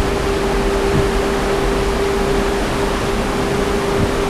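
Loud, steady rush of gale-force wind at about 50 knots, blowing across the balcony together with the sea below. A steady low hum runs through it.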